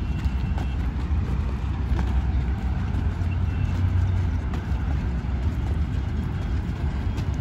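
Sports shoes landing in repeated two-footed hops on hard-packed dirt, faint scattered thuds over a steady low rumble.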